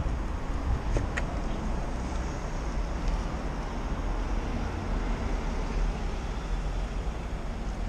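Road traffic noise by a busy street, a steady low rumble, with a few light clicks about one and three seconds in.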